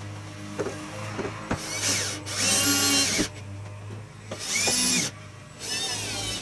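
Power drill run in three short bursts, its motor whine rising and falling in pitch, the first burst the longest, after a few light knocks.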